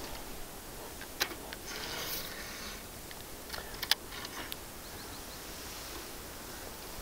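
Fishing tackle being handled: a few sharp clicks, the loudest about four seconds in, and a short rustle about two seconds in.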